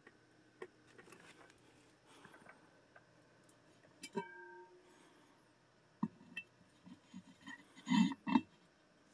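A Fenton ruby red glass hurricane lampshade being handled and turned over on a wooden stand: scattered light knocks, then one clink about four seconds in that rings briefly with a clear tone. Near the end come the loudest two knocks as the glass shade is set down upside down on the stand.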